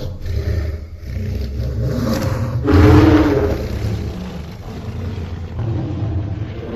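Godzilla monster sound effect: a deep, rumbling growl with a louder pitched swell about three seconds in, then easing off.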